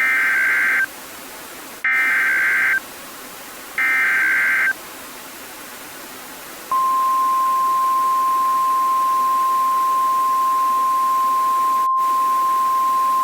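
Three Emergency Alert System SAME header bursts, digital data tones about a second long each and two seconds apart. About two seconds after the last burst, the NOAA Weather Radio 1050 Hz warning alarm starts as one steady tone, over a faint constant hiss.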